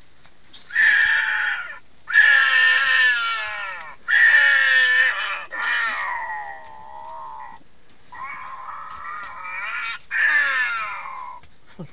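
Horses whinnying: a run of about six long calls, each a second or two long, with wavering pitch.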